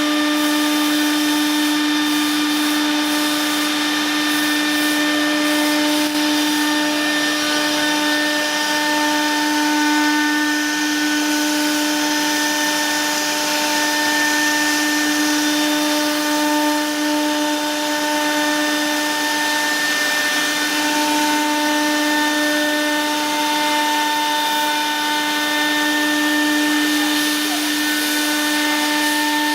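CNC router's spindle motor running at a steady speed, a constant whine with overtones over a steady rushing noise.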